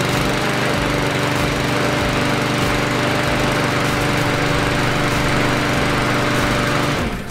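Honda 160cc single-cylinder engine of a new Troy-Bilt TB240 self-propelled lawn mower running steadily at a constant speed, just after starting on the first pull. The sound cuts off near the end.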